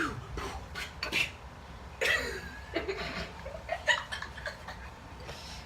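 Scattered short bursts of soft chuckling and laughter, with brief vocal noises and a few light clicks between them.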